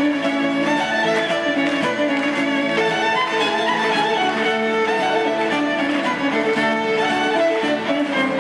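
Live folk band playing a fast fiddle reel: the fiddle carries the tune over strummed acoustic guitar, electric guitar and drums.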